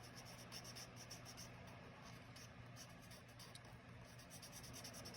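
Faint, quick repeated scratching strokes of colouring in a box on a paper chart.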